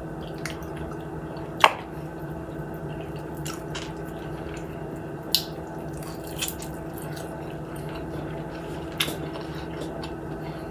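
Close-miked eating sounds: quiet wet chewing with a few sharp mouth clicks and smacks, over a steady low hum.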